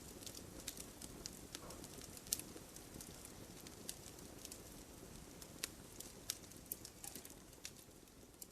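Wood logs burning in a campfire: a soft steady rush of flame with frequent irregular sharp crackles and pops.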